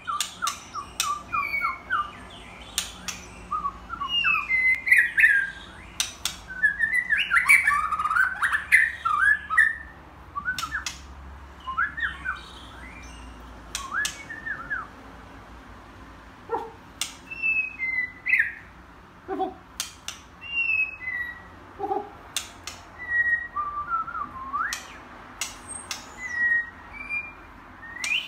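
White-rumped shama singing: varied whistled phrases with quick glides, dense and loud in the first half, sparser short whistles in the second half, with sharp clicks scattered between the phrases.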